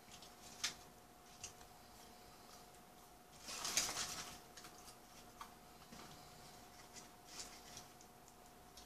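Quiet eating sounds: small clicks and taps as fries are picked from a paper wrapper, with a short burst of paper crinkling about three and a half seconds in, over a faint steady hum.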